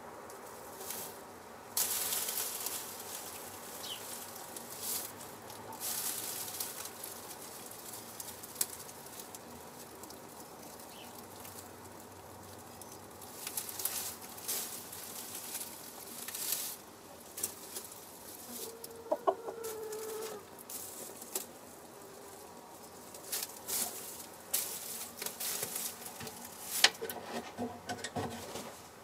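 A hen rustling and scuffling in the straw of a nest box and shifting her feathers as she gets up off her eggs, with irregular bursts of rustling throughout. A short cluck comes about two-thirds of the way in, and another brief call near the end.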